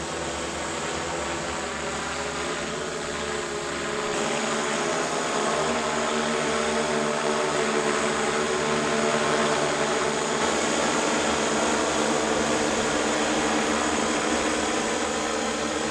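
Eagle XF multirotor drone's propellers whirring in flight, a steady hum of several tones over a rush of air, growing louder about four seconds in as the drone comes closer.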